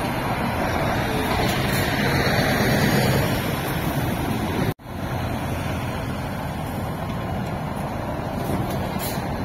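A Scania 770 V8 truck pulling an empty low-loader trailer drives past close by, its engine and tyre noise building to a peak a few seconds in. The sound cuts off suddenly about halfway through, then more heavy-truck traffic goes by with steady engine noise.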